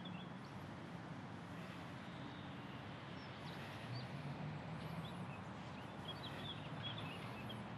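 Faint outdoor ambience: a few scattered bird chirps over a low, steady background hum.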